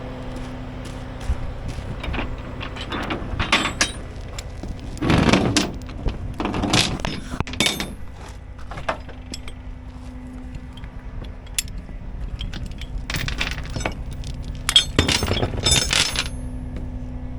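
Truck engine idling steadily under several bursts of clinking and rattling metal. The loudest bursts come about five seconds in and again near fifteen seconds.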